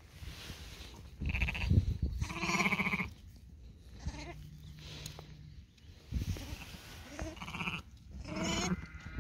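Sheep bleating several times in short calls, from a young ewe and her newborn lamb.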